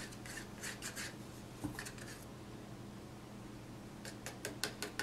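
Faint clicks and light taps of small plastic paint cups and bottles being handled and set down on a table, in two clusters, at the start and near the end. A low steady hum runs underneath.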